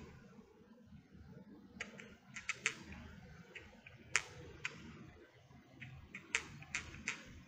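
Thin metal knitting needles clicking and tapping together in irregular clicks as knit stitches are worked, over soft rustling of the yarn and fabric. The clicks come in a quick cluster about two seconds in, a single loudest one around four seconds, and another run near the end.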